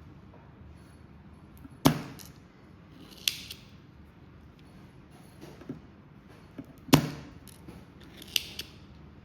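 Spring-loaded desoldering pump (solder sucker) fired twice, each release a sharp snap with a thud as the plunger shoots back and sucks molten solder off the board. Between the shots the plunger is pushed back down to re-cock it, with a short hiss of expelled air and a latch click.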